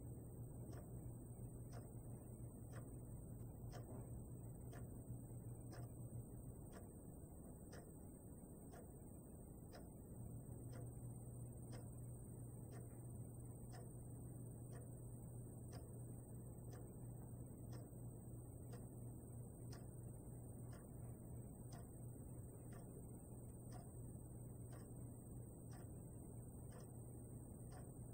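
Faint, regular ticking, about two ticks a second, over a low steady hum that drops out for a few seconds about a quarter of the way in, with a thin high whine throughout.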